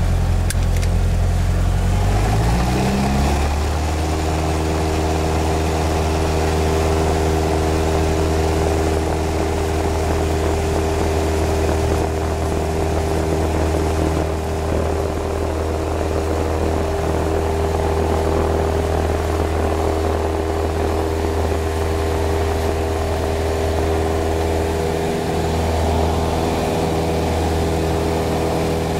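Light single-engine propeller plane's piston engine heard from inside the cockpit, its pitch rising as the throttle is opened about two to three seconds in. It then runs steadily at full power through the takeoff roll.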